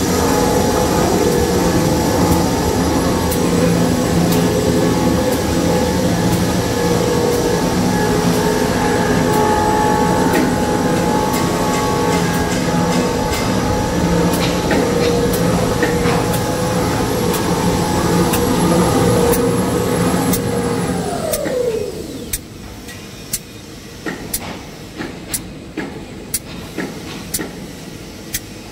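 Jumbo-roll toilet tissue paper machine running with a steady hum of several tones and regular sharp clicks. About three quarters of the way through, the hum winds down in pitch and drops away, leaving quieter clicks and knocks.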